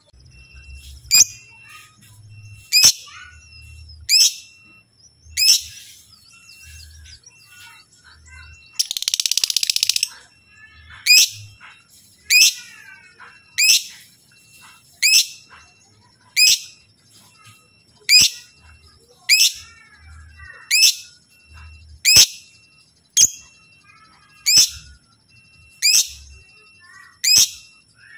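Lovebird calling: loud, sharp, high-pitched single calls repeated about once every second and a half, with softer chattering between them. A harsh, noisy burst lasting about a second comes about nine seconds in.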